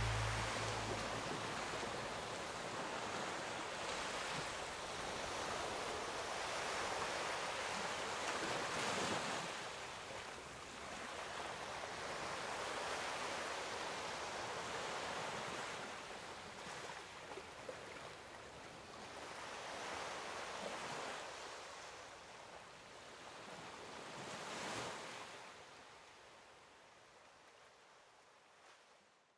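Ocean surf washing in, a steady hiss that swells every few seconds as waves break, then fades away near the end.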